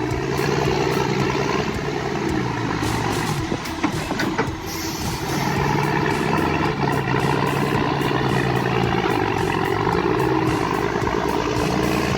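A heavy truck's engine running steadily under load, its pitch drifting slightly up and down.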